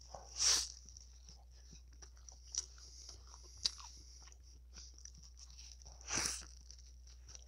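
Close-miked bites into a gyro in pita bread, twice: a loud bite about half a second in and another a little after six seconds. Soft chewing and small mouth clicks come between them, over a faint steady high hiss.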